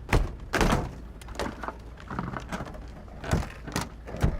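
Several sharp knocks and thuds, about seven of them at irregular spacing, over a steady low hum.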